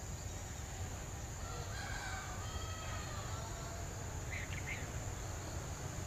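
A rooster crowing in the distance, one drawn-out call starting about a second and a half in. A few short bird chirps follow near the end. Underneath runs a steady high insect drone and a low rumble.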